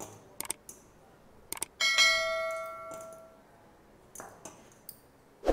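Short clicks followed by a bell-like ding that rings out and fades over about a second and a half, in the manner of a subscribe-and-bell-icon animation's sound effect.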